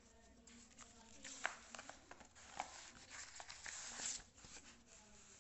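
Faint rustling and scraping of a paper sheet being slid across a desk, with a few light ticks, louder around three to four seconds in.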